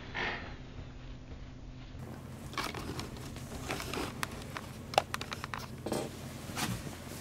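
A cat grooming kittens with its tongue on a quilted bedspread: soft wet licking clicks and rustling of fur and bedding, with one sharper click about five seconds in.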